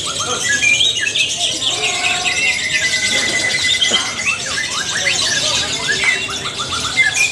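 Lovebird singing a long unbroken run of rapid high chirps and squeaky trills, with one held whistle-like note about two seconds in.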